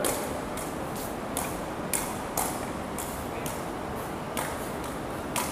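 Repeated sharp mechanical clicks, about two a second and not quite evenly spaced, over steady background noise.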